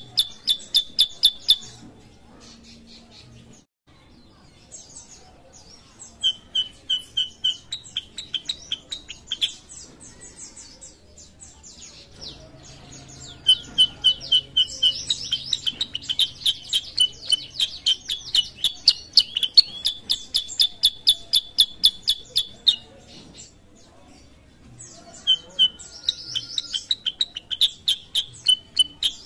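Kutilang sutra songbird singing in fast runs of sharp, repeated chirping notes. It sings in bouts: a short pause near the start, a run that starts about six seconds in, a long burst through the middle, a brief break, and another run near the end.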